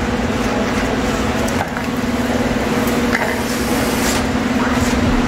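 A steady machine hum, one constant low drone, with a few faint light knocks over it.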